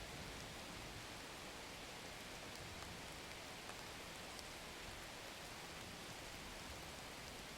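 Faint, steady hiss of quiet ambience, with a few faint ticks scattered through it.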